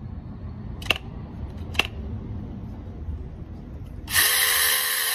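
Two sharp clicks as a cordless FuguiB mini chainsaw is handled. About four seconds in, its battery-powered electric motor is switched on and runs the chain loud and steady, with a whine.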